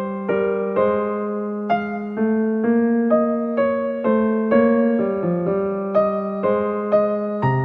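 Background music: a gentle electric piano playing a slow melody of sustained notes, about two a second, over a held bass note.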